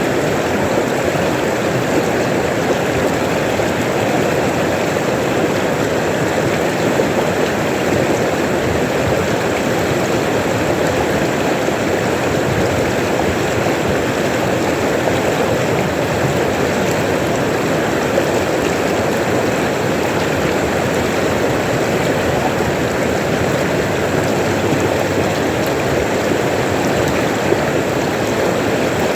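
River water running: a steady, even rush of flowing water with no breaks.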